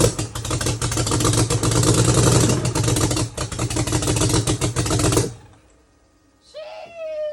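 BMW 335i's N55 turbocharged straight-six running rough with a heavy clatter, then shutting off abruptly about five seconds in; the engine has rod knock and is misfiring on a cylinder. A cat meows once near the end, its pitch falling.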